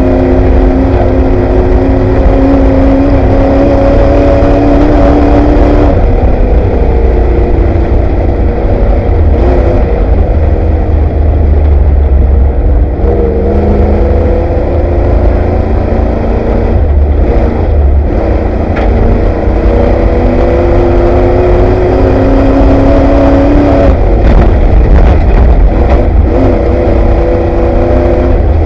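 Ford Bronco desert race truck's engine heard from inside the cab at race pace. The engine note climbs under acceleration and drops back several times as the truck lifts and shifts, over a constant loud low rumble from the truck and the rough ground, with a few sharp knocks.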